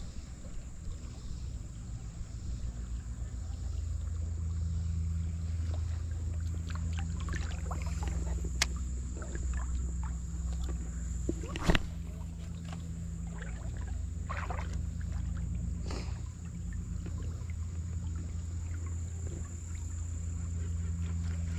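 River current rushing steadily, heard as a low rumble, with two sharp clicks about 9 and 12 seconds in.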